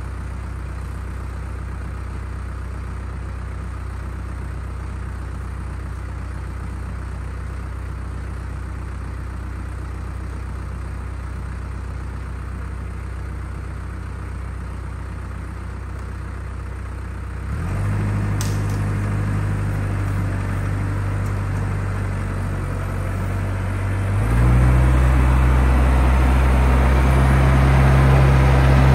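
An engine idles steadily, then runs faster in two steps, about 17 seconds in and again about 24 seconds in, getting louder and higher each time.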